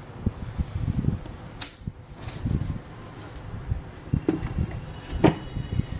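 Irregular knocks and rattles of small objects being handled, with a few sharp clicks.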